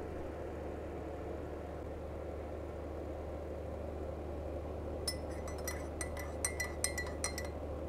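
A metal teaspoon stirring coffee in a mug, clinking against the mug's side about a dozen times in the last three seconds. A steady low hum sits underneath.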